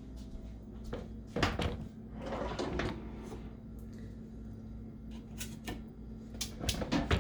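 A kitchen drawer being worked: scattered knocks and clacks of it opening and closing and of items inside being moved, with a brief rustling scrape in between, over a faint steady hum.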